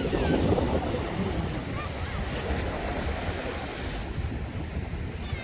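Steady rushing noise of surf and wind on the microphone, with a few faint, short high-pitched calls about two seconds in and near the end.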